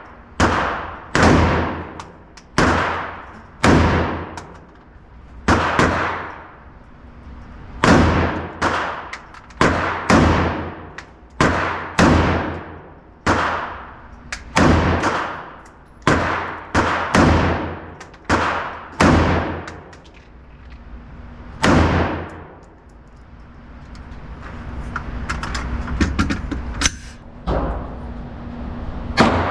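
AR-15 rifle (Smith & Wesson M&P Sport 3) firing semi-automatic shots at a steady pace, roughly one a second, about twenty in all, each with a short echoing tail. The shots pause for a few seconds near the end before two more.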